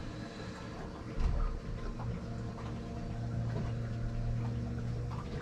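A steady low hum, with one dull thump about a second in.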